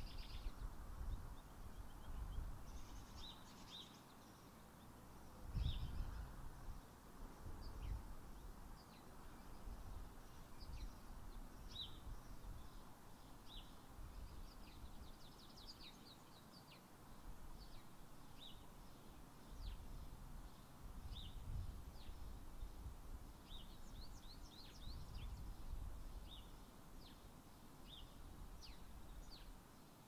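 Backyard birds chirping in short, high notes every second or two, over faint low gusts of wind rumbling on the microphone.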